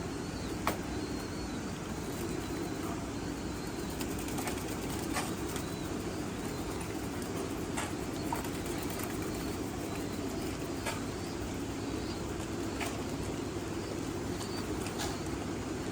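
Pigeons flapping their wings, with scattered short clicks and a few faint high chirps, over a steady low noise.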